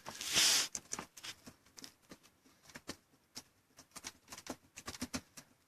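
A brief rustling hiss about half a second in, then scattered light clicks and taps, irregular and a few per second.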